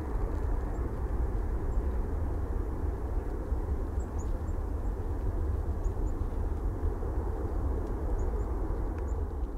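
Boeing 747-400 freighter's four jet engines at takeoff thrust as it climbs away after lift-off: a steady, deep rumble.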